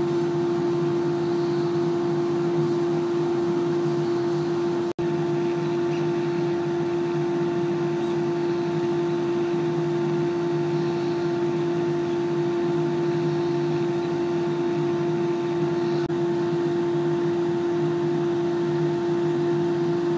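VersaLaser laser cutter running while it engraves and cuts an acrylic panel: a steady machine hum with one strong constant tone, broken only by a momentary dropout about five seconds in.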